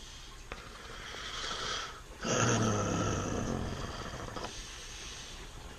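A man's heavy, rasping breath: a noisy inhale of about a second, then a longer rough exhale with a snore-like rattle that fades out.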